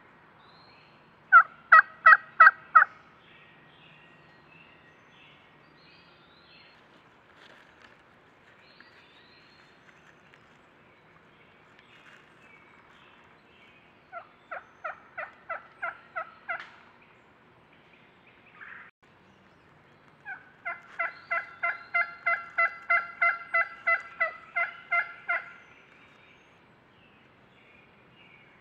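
Wild turkeys calling in three runs of loud, evenly spaced notes, about four a second: a short loud run about a second in, another around the middle, and a longer run of about five seconds past the two-thirds mark. Faint songbird chirps sound in the gaps.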